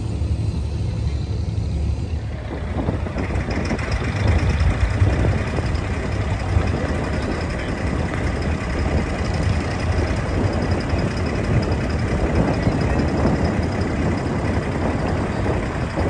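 Abra water taxi's inboard engine running steadily with a low rumble, joined about three seconds in by a louder hiss of water and wind.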